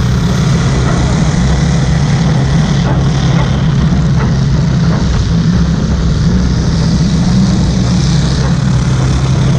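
Demolition derby car's engine running loud and steady, a low drone, with a few faint knocks over it.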